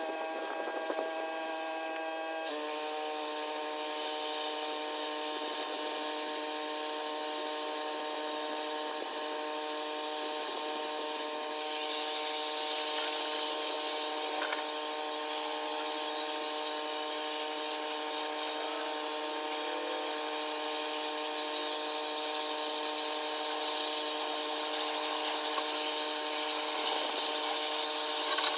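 Pressure washer running steadily, a constant whine with the hiss of the water spray. Its tone shifts slightly and it gets a little louder about two and a half seconds in.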